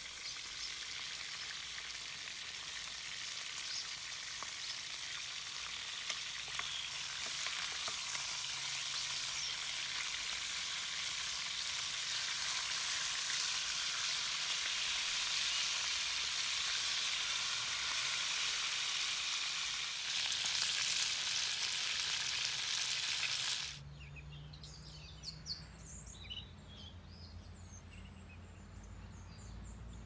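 Chicken pieces sizzling as they fry in a pot, stirred now and then with a wooden spoon; the sizzle grows louder over the first several seconds. About three quarters of the way through it cuts off, and birds chirp over a low rumble.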